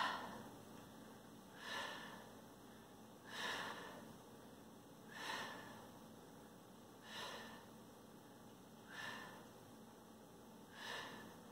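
A woman breathing out sharply in short puffs, about one every two seconds, seven in all: an exhale timed to each repetition of a bodyweight exercise.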